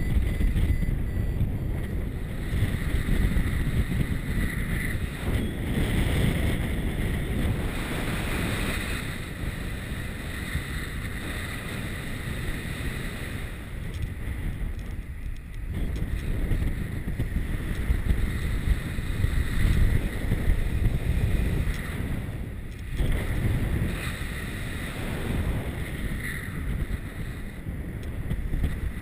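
Airflow of paragliding flight buffeting the microphone: a steady low rumble of wind that swells and eases in gusts.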